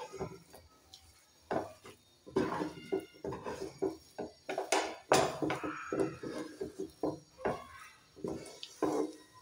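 Spatula scraping and slapping through thick semolina and potato dough in a metal pan, in quick irregular strokes against the pan's sides and bottom. The strokes start about a second and a half in, after a fainter opening. The dough is being cooked down into a stiff ball.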